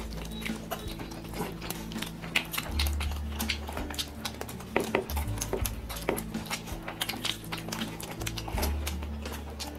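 Light instrumental background music with a bass line of held low notes, over scattered short clicks and smacks from fingers working rice and chicken on plates and from chewing.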